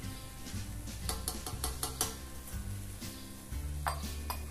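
Background music with a steady bass line, over the sizzle of butter melting into salt cod and onions frying in a pan.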